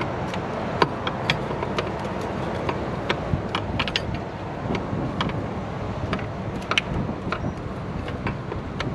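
Hand tool working a fitting under the hood: scattered, irregular metallic clicks and clinks of a ratchet or wrench against metal, over a steady rushing background of wind on the microphone.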